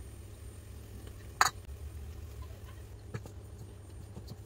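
A single short, sharp clink about a second and a half in, as a spoon scoops solid fat from a glass jar into a steel bowl of flour. It is followed by faint soft ticks as a hand rubs the fat into the flour, over a steady low hum.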